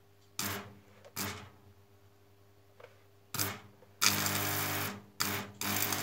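Electric arc struck between two carbon rods fed by an old-style Sigweld TransArc stick welder at about 140 amps. Three short crackling strikes as the rods touch, then an arc held for about a second with a loud buzz, then more strikes near the end.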